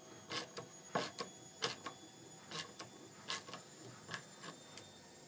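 Irregular metallic clicks and ticks, a couple a second, as a self-tapping threaded insert on a bolt is turned by hand into a drilled hole in a soft aluminium brake plate; the insert is still struggling to bite and start its thread.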